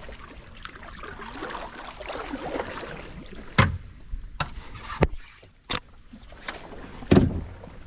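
Kayak being paddled through water: a steady swishing of water with five sharp knocks scattered through the middle and near the end, and one short hissing splash about halfway.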